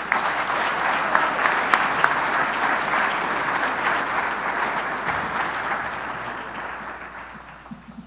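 Audience applauding, many hands clapping at once; it starts strongly and fades out over the last couple of seconds.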